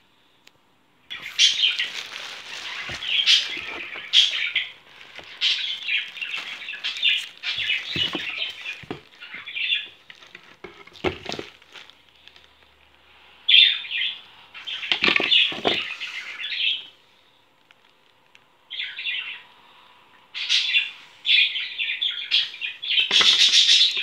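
Clear plastic packaging crinkling and rustling in irregular bursts as it is handled, with a few dull knocks of parts being moved in a cardboard box.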